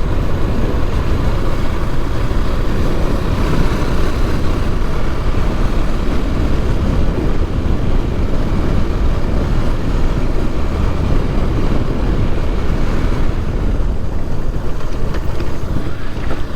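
Motorcycle riding steadily over a rough track, with wind rushing over the microphone and the engine running underneath.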